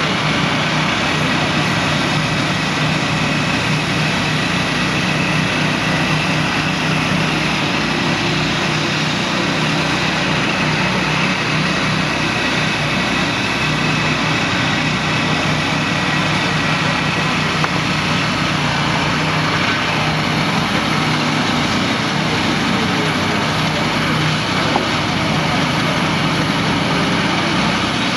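Norwood Frontier OS-27 manual bandsaw mill's gas engine running steadily at speed, with a constant low hum.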